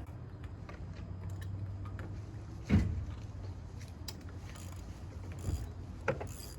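Small metal clicks and knocks from fitting a clutch slave cylinder and starting its mounting bolts by hand, with one sharp loud knock about three seconds in, over a steady low hum.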